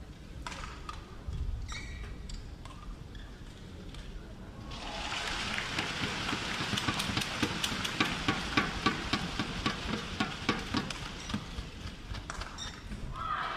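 Badminton rally heard from the stands: a few sharp racket strikes on the shuttlecock, then from about five seconds in the crowd noise swells, with a dense, irregular clatter of clapping through the rest of the rally.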